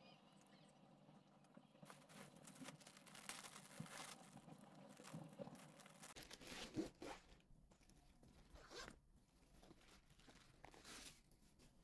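Quiet handling of packaging and purchases, with several short zip-like rasping strokes; the loudest comes a little under 7 seconds in.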